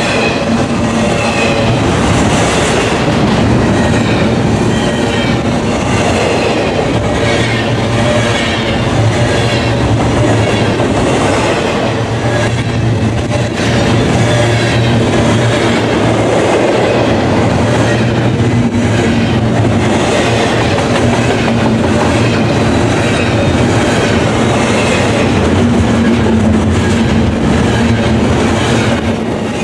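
Double-stack intermodal train's loaded well cars rolling past close by: a steady, loud wheel-on-rail rumble with a low hum and a regularly repeating clatter of wheels over the rail joints.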